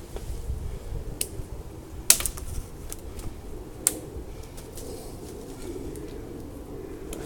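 Boots shifting in soft mud among wet leaves: squelching with a few sharp pops, the loudest about two seconds in.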